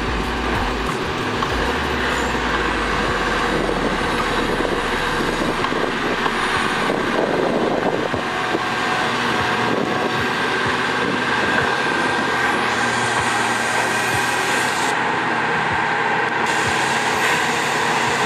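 Heavy diesel construction machinery running steadily.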